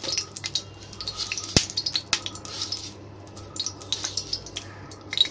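Ghee heating in an iron kadai, crackling with many small irregular pops, and a sharp knock about a second and a half in.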